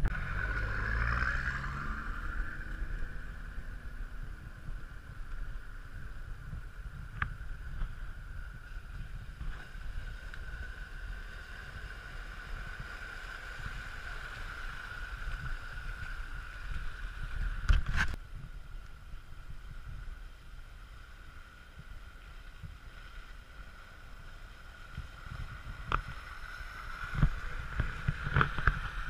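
Four-wheel-drive vehicles' engines running at low speed as they drive through flood water, with water sloshing and wind on the microphone. A loud sharp knock comes a little past the middle.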